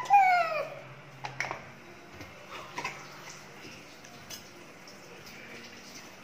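A child's brief voice falling in pitch, then a few light clicks and taps of a jar, a knife and a plastic plate on the kitchen counter as a pancake is spread with topping.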